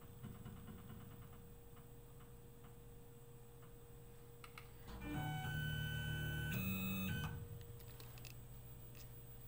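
Tormach PCNC 1100 mill's axis stepper motors whining steadily for about two seconds as the table jogs, the pitch stepping up once partway through before stopping, after a few light clicks.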